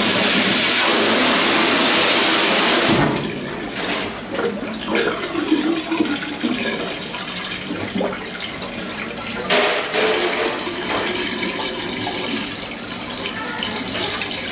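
Water rushing steadily, then cutting off abruptly about three seconds in, followed by quieter splashing and trickling with a couple of sharp knocks.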